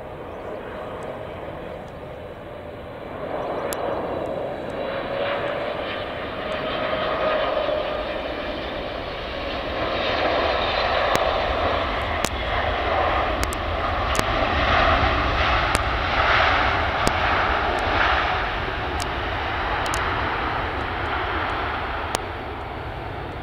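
Boeing 777 twin-jet landing. The engines' whine and rumble grow as it comes in low, then after touchdown they run up into reverse thrust, the loudest part, easing off near the end as the aircraft slows on the runway.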